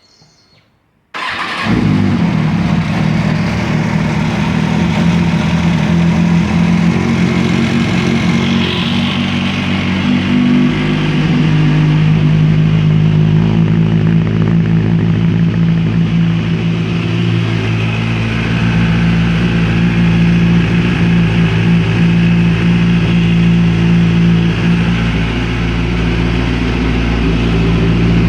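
2005 Kawasaki Ninja ZX-6R inline-four engine starting about a second in, then idling steadily. Its noise is the kind the owner ties to the cam chain, cam chain tensioner or valves.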